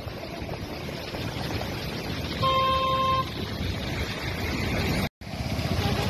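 Seawater rushing and foaming over a road, with wind buffeting the microphone; a vehicle horn sounds once, steady and under a second long, about two and a half seconds in. The sound drops out for an instant near the end.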